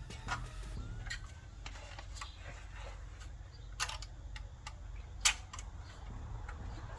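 Plastic wiring-harness connectors clicking and rattling as they are unplugged from the back of a car's audio unit, with scattered small clicks and two sharper snaps about four and five seconds in.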